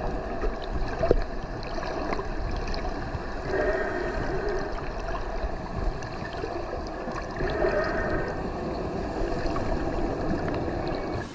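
Water running or gurgling, with two short pitched sounds over it, one a little before halfway and one a little after.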